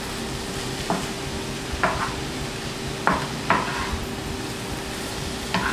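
Stir-frying cauliflower rice in a pan: a utensil scrapes and knocks against the pan about five times over a low, steady sizzle.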